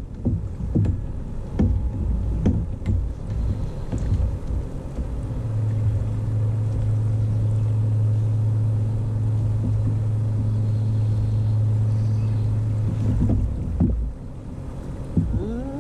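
A kayak hull knocking and bumping repeatedly as it is worked through a shallow, muddy channel. Then, from about five seconds in, a steady low hum lasts for about eight seconds.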